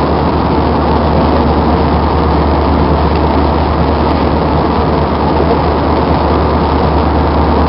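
Steady cabin noise of an Airbus A320 in flight: an even rushing sound over a low, constant hum.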